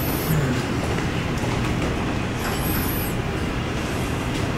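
Steady rumbling background noise of a large function room: a dense, even hiss and low rumble with no clear voices.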